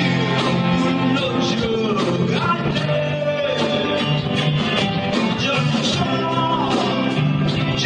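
Heavy metal band playing live: electric guitars, bass and drums with a steady, even beat, loud and without a break.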